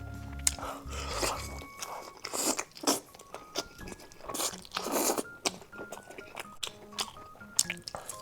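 Close-up crunching and chewing of crispy deep-fried skewers, a run of crisp bites one after another, over soft background music.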